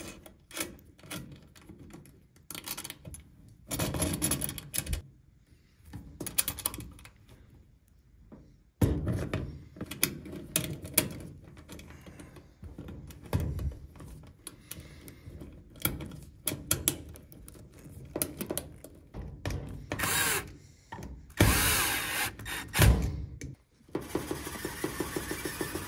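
Irregular clicks, taps and knocks of hands fitting a metal strain-relief clamp and a four-wire dryer power cord at the back of a dryer, with a steady rubbing noise near the end as the cord is pulled through the clamp.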